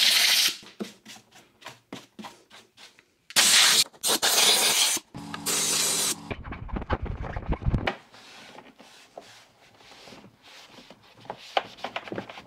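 Cleaning the plastic housing of a Festool CT 22 E dust extractor: three loud hissing bursts, the longest about a second and a half, then many short rubbing and scraping sounds of handling and wiping.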